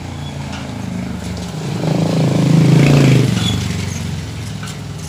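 A motor vehicle engine passing by, its low hum swelling to its loudest about three seconds in and then fading away.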